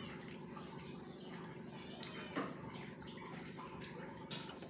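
Faint wet sounds of fingers picking apart a curried katla fish head and rice on a steel plate, with a light click about halfway and a sharper one near the end.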